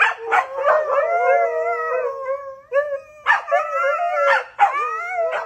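Several huskies howling together in long, wavering, overlapping howls, with short breaks about two and a half seconds and four and a half seconds in.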